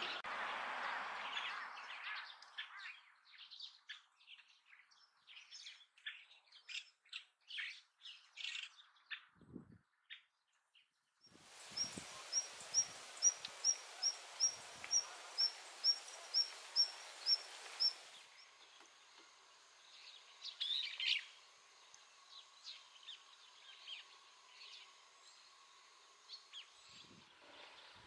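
Wild birds calling over a stream: water rushing at first with chirps breaking in, then one high, short call repeated about twice a second for several seconds, then fainter scattered chirps.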